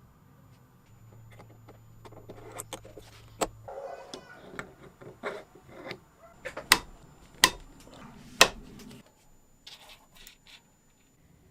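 Small metal parts and tools being handled: scattered light clinks and scrapes, with three sharp loud clicks in the middle.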